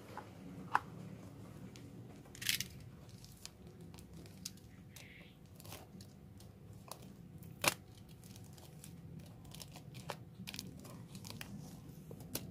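Utility knife slicing and scraping through the plastic wrap and tape of a parcel box, with plastic crinkling. Scattered short scrapes and clicks, the sharpest about two and a half seconds in and again near eight seconds.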